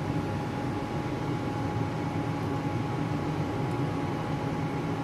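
Steady machine-like hum and hiss with a thin, constant high whine, unchanging throughout.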